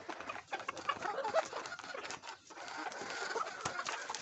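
Hens pecking at soaked roti: many quick, irregular beak taps, with soft clucks among them.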